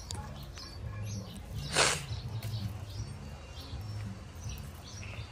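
Small birds chirping faintly in short high calls, over a low uneven hum. About two seconds in comes one short rustling noise, the loudest sound here.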